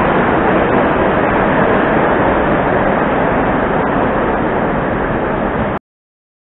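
Moscow metro train pulling away from an open-air platform: a steady rumble and hiss with a few faint clicks, easing slightly, until the sound cuts off abruptly near the end.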